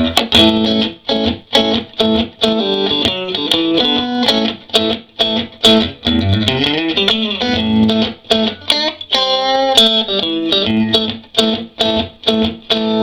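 Electric guitar, a 1983 Fender Stratocaster on its neck pickup with the tone rolled back a little, played clean through a 1956 Fender Princeton tweed tube amp at about a quarter volume. It plays picked single-note lines and chords with a few string bends, ending on a ringing chord.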